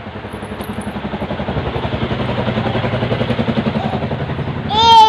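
A vehicle engine running with a rapid, even pulse, growing louder through most of the stretch. Near the end comes a short, loud, high-pitched voice whose pitch wavers up and down.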